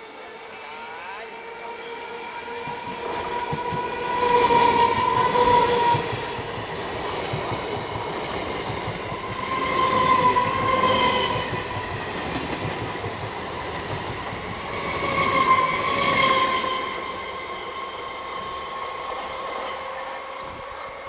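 Electric multiple-unit suburban train running through a station at speed, its wheels clattering over the rails. Three horn blasts sound about five to six seconds apart, each lasting a second or two.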